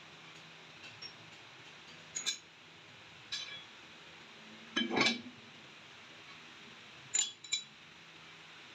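Steel cutter blades of an atta chakki flour mill clinking against each other and the rotor shaft as they are slid on and stacked: a series of short metallic clinks, the loudest about five seconds in.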